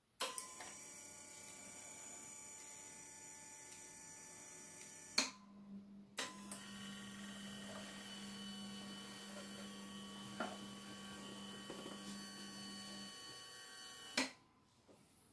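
Small electric motors of an automatic model excavator running with a steady whine, stopping about five seconds in and starting again a second later, then cutting off with a click near the end.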